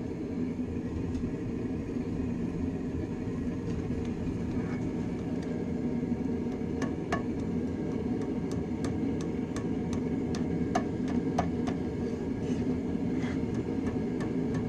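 Hand hammer striking a red-hot railroad spike on a steel anvil over a steady low roar. The blows start out scattered and get quicker and more even near the end, some with a short metallic ring.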